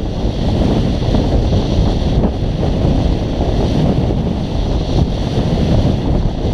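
Wind buffeting a body-worn action camera's microphone: a loud, steady low rumble.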